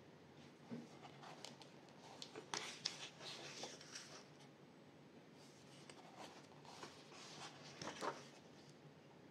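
Pages of a paperback colouring book being turned and smoothed by hand: faint paper rustling and soft flicks, a few seconds in and again near the end.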